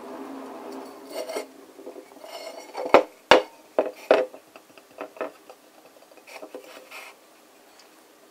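Hard clay mask being handled: fingers rubbing and tapping over its painted surface, with a few sharp knocks and clicks as it is turned and set down on the table, the loudest about three seconds in.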